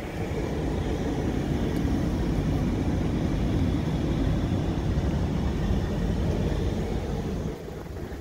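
Wind buffeting the phone's microphone: a steady low rumble that eases near the end.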